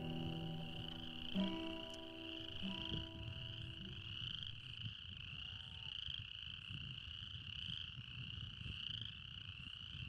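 A chorus of frogs calling steadily in high, pulsing trills. The last acoustic guitar chord rings out and fades away over the first few seconds, and a low rumble of wind or mic handling runs underneath.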